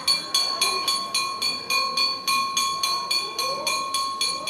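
Brass puja hand bell rung continuously during temple worship, about four strokes a second, each stroke ringing on into the next. Faint voices underneath.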